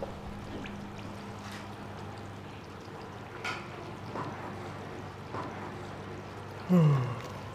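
Chili oil sizzling softly in a large iron wok as a long-handled ladle slowly stirs the dried chilies, with a few faint scrapes of the ladle. Near the end comes a short voice sound falling in pitch, the loudest thing here.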